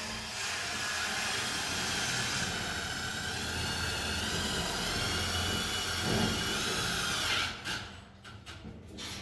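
Electric power drill running with a steady whine for about seven seconds, then winding down and stopping.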